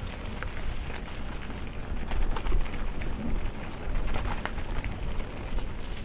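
Mountain bike riding over a wet dirt and gravel track: a steady low rumble of wind on the microphone, tyre noise on the gravel and scattered ticks and rattles from stones and the bike.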